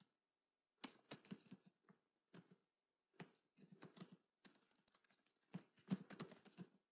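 Computer keyboard typing: quiet key clicks in several quick bursts with short pauses between them.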